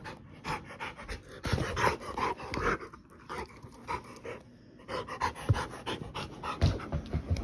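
Rottweiler panting hard in quick rhythmic breaths, which ease off briefly about halfway through.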